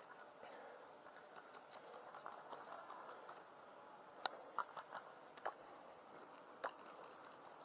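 Six sharp, irregularly spaced cracks of airsoft shots in the second half, the first the loudest, over a faint steady rustle.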